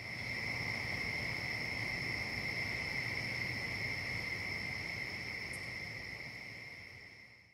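Crickets trilling steadily in one unbroken high tone over a faint low rumble; it fades in at the start and fades out at the end.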